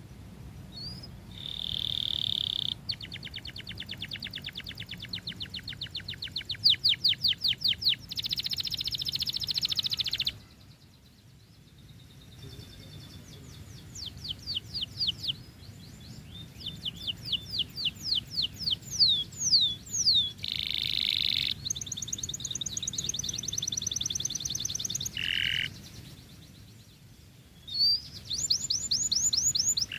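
Domestic canary singing a long, varied song: phrases of rapid trills and quickly repeated sweeping notes, broken by short pauses about ten seconds in and again near the end.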